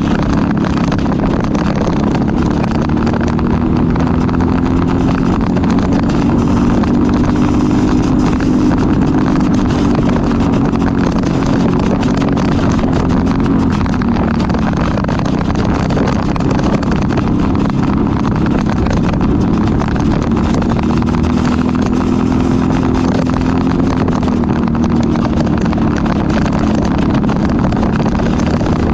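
Briggs & Stratton LO206 single-cylinder four-stroke kart engine running hard at racing speed. Its pitch repeatedly climbs as it accelerates and then drops back off.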